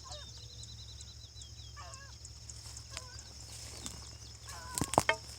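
A hunting dog giving voice faintly while running game, a few short wavering calls spaced out, with a couple of sharp knocks near the end.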